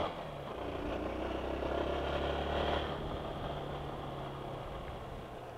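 Honda Bros 160's single-cylinder engine pulling the motorcycle up a street. The revs dip at the start, climb for about three seconds, then drop back to a lower, steady note.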